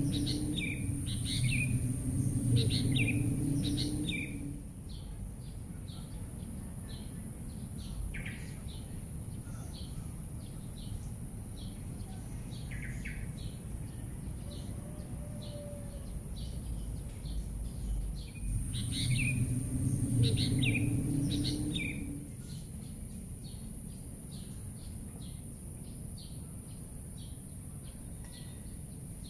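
Birds chirping and calling, many short high calls with no let-up, over a low rumble that swells twice: in the first four seconds and again about nineteen to twenty-two seconds in.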